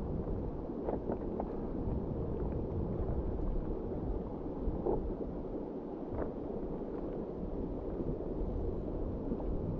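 Steady rush of flowing river water, with a few faint, brief sounds about a second in and again near the middle.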